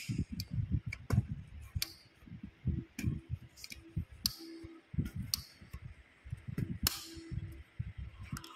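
An umbrella's metal frame clicking and rattling in irregular, sharp clicks and low knocks as the runner is worked by hand against its catch. The catch is short and barely holds, so the canopy folds shut on its own at the slightest movement.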